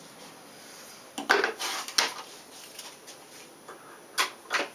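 Small items being handled and knocked about on workshop shelving: a short rattling clatter about a second in, a click, then two sharp knocks near the end.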